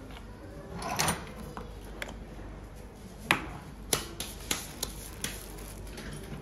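Irregular light clicks and knocks, about eight in all and bunched in the second half, the sharpest a little past the midpoint, with a brief rustle about a second in.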